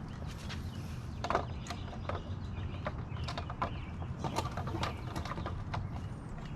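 Irregular light clicks and knocks of plastic Aero wheel covers being handled and snapped onto a car's wheel, over a steady low rumble.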